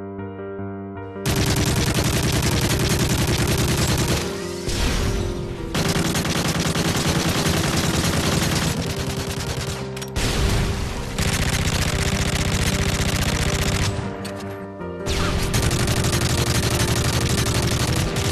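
Loud music with rapid, dense machine-gun-style gunfire over it. A soft pitched opening gives way about a second in, and the sound drops away briefly three times.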